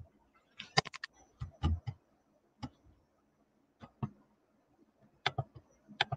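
Computer mouse clicks: about six short groups of sharp, quick clicks, a second or so apart.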